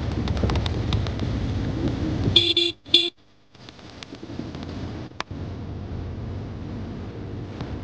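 A vehicle rumbling along a rough gravel road, with wind on the microphone, then two short horn toots about two and a half seconds in. After a moment of near silence the rumble carries on more quietly.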